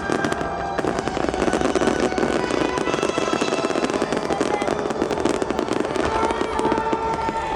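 Display fireworks bursting and crackling in a dense, rapid run of reports, over music with held notes.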